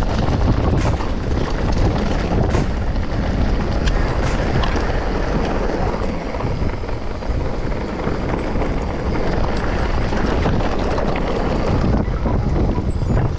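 Wind buffeting the microphone of a camera on a moving mountain bike, over the steady rumble of tyres on a dry, rocky trail, with scattered sharp rattles and knocks from the bike.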